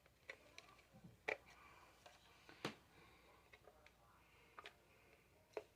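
Near silence broken by a few sharp clicks and taps at uneven intervals, the strongest about a second and two and a half seconds in.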